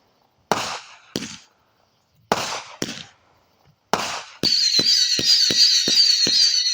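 Consumer fireworks going off: five sharp bangs with trailing echoes, then from about four and a half seconds a rapid string of crackling pops under a high, wavering whistle.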